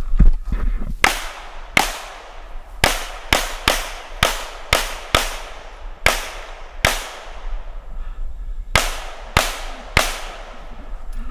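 A .40 calibre Glock pistol fired about thirteen times in quick strings of two or three shots, each shot trailing off in a short echo. There is a longer pause before the last three shots.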